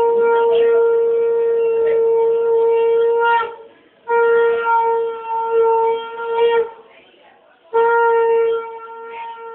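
Conch shell (shankha) blown in long, steady, single-pitched blasts: one ends about three and a half seconds in, a second follows after a short breath, and a third starts near the end.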